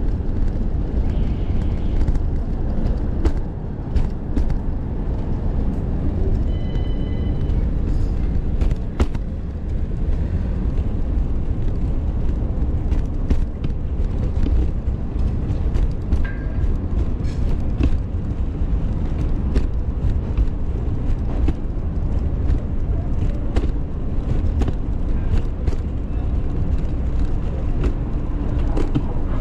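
Cat stroller rolling along a city sidewalk: a steady low rumble from its wheels, with scattered clicks and rattles, over street traffic noise.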